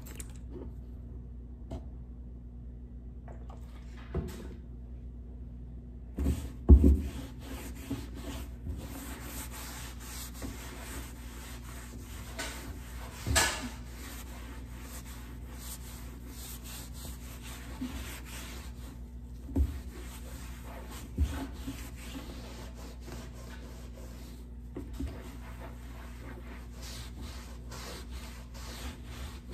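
A cloth scrubbing and wiping the dusty top of a wooden kitchen cabinet, cleaning it with degreaser: continuous rubbing strokes, quieter for the first few seconds, with a few knocks against the wood, the loudest about seven seconds in.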